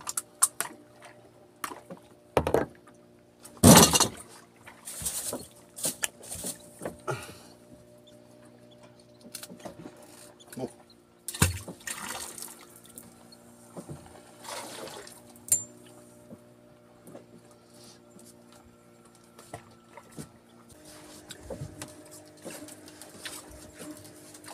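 Thumps, knocks and water splashes from handling a freshly caught baby tuna and fishing line in a small open boat. Under them an outboard motor hums steadily at idle, its pitch shifting near the end.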